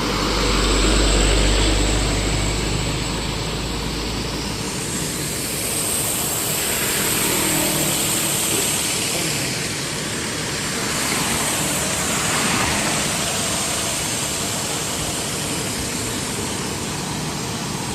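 Road traffic passing close by: a heavy low rumble for the first few seconds, then vehicles going past in two swells that rise and fade.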